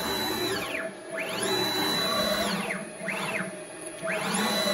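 6040 CNC router's stepper motors driving the axes through fast rapid moves: a whine that climbs in pitch, holds steady and falls away as each move speeds up and slows down, several moves back to back with one short one in the middle.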